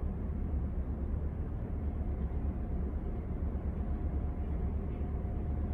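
Outdoor harbour ambience: a steady low rumble with a faint steady hum running through it.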